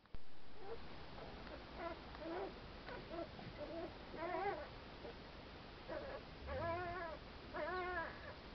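Newborn Saarloos wolfdog puppies whimpering while nursing: a string of short high squeaks that become longer whines, three drawn-out arching ones in the second half. A brief low bump sounds as it opens.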